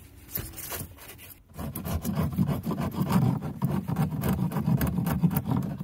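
A hand tool scraping and rubbing against a cut PVC pipe stub and its surrounding spray-foam insulation. A few light scrapes come first, then rapid, continuous scraping strokes from about two seconds in.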